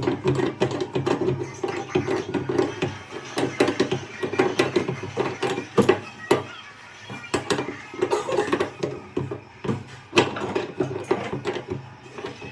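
Irregular sharp knocks and clicks of hand carpentry work on a wooden bed frame.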